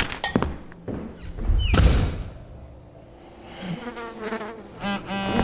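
A fly buzzing about, its pitch rising and falling as it moves. It passes loudest about a second and a half in. There are a few sharp clicks near the start.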